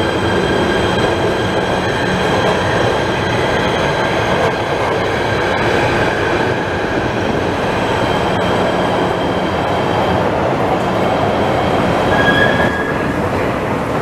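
PATH rapid-transit train pulling out of an underground station platform: a steady loud running rumble with high steady tones of wheel and motor whine over it, and a brief louder squeal near the end.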